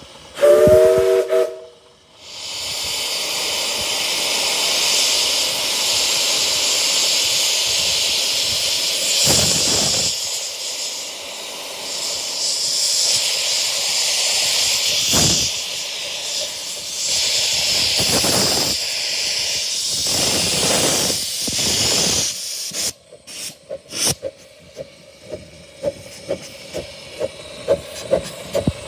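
Miniature steam locomotive sounding a loud chord whistle of three notes for about a second and a half. It then starts away with a loud steady hiss of steam blowing from its open cylinder drain cocks for about twenty seconds, with a few heavier chuffs. About two-thirds of the way through, the hiss gives way to a quieter, even chuffing of about two to three beats a second as the engine rolls past.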